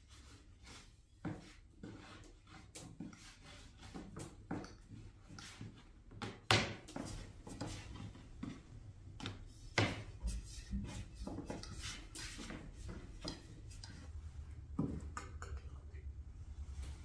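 Irregular knocks, clicks and clatter of kitchenware being handled and set down during cooking work. The loudest knocks come about six and a half and ten seconds in.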